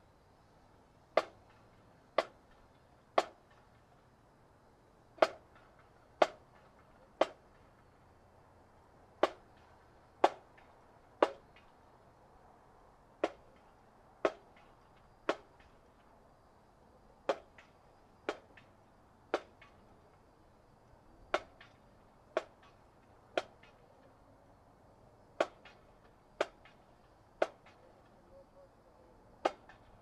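Marching band percussion clicking time, like drumsticks struck on rims or together: sharp single clicks about one a second in a repeating pattern of three clicks and a one-beat rest, as the band marches into formation.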